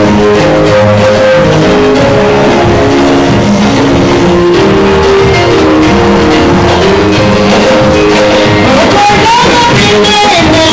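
Loud live worship music led by guitar, with melody notes changing every half second or so; a singing voice comes in near the end.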